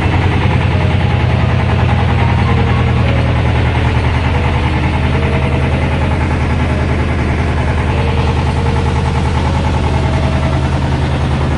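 The yacht's engine running steadily under way, a low even hum heard from inside the cabin below deck.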